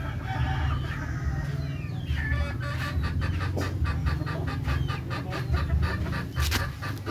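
Chicken clucking: from about two seconds in, a quick run of short clucks, several a second, over a low steady rumble, with one sharp click near the end.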